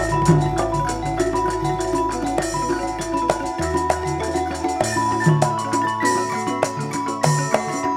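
Campursari ensemble playing instrumental music: gamelan metallophones strike a quick, busy melody over drums and low held bass notes that shift pitch a few times.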